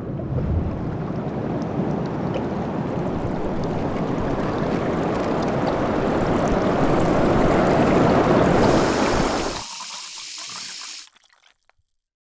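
Rushing water, growing louder for several seconds, then cutting off suddenly near the end: the lower part drops out first, a short hiss follows, then silence.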